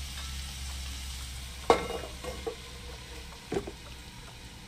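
Pork and mushrooms sizzling gently in a frying pan under a low hum. A stainless steel lid knocks onto the pan with a short ring about a second and a half in, and there is a lighter knock about two seconds later.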